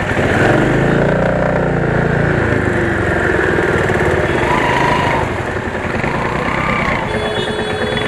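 Motorcycle engine running, its pitch rising and then falling over the first two seconds, then a steady rumble of engine and street noise, with a short steady tone near the end.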